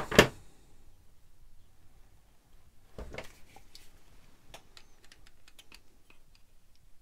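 Light handling noises of a Knipex self-adjusting wire stripper and a metal lampholder as the stripper is lined up on a fabric-covered lamp cable conductor: one sharp click just after the start, a brief rustle about three seconds in, then scattered small ticks.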